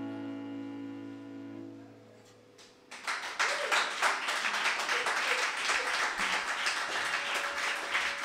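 The band's last held note rings and fades out, then audience applause starts about three seconds in and carries on.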